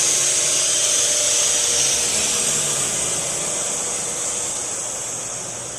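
Swimming-pool pump motor running with a steady hissing whir and a faint hum, sounding normal and healthy. It grows steadily fainter.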